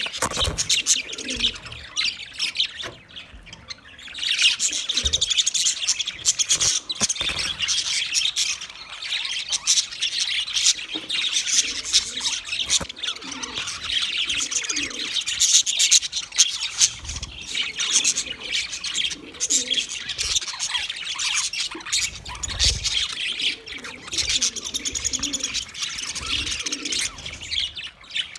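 A flock of budgerigars chirping and warbling in a dense, continuous chatter, with a brief lull about three seconds in.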